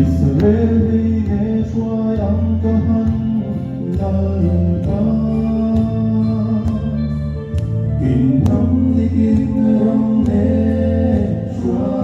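Background music: a song with a sung melody over guitar and a steady bass, in a gospel style.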